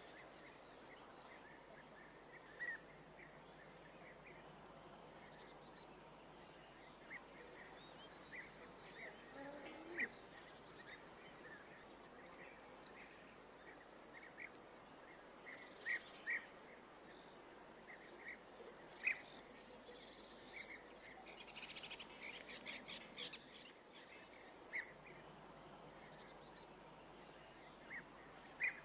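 Faint outdoor nature ambience: a steady, pulsing insect trill, with short bird chirps scattered throughout and a brief flurry of chirps about two-thirds of the way through.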